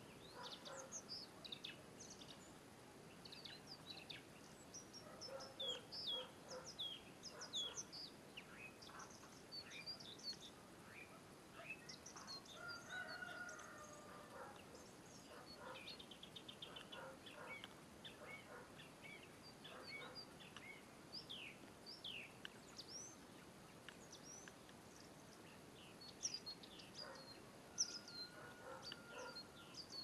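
Faint wild birdsong: many short, high, falling chirps from small birds, scattered irregularly, with a longer, lower call about halfway through.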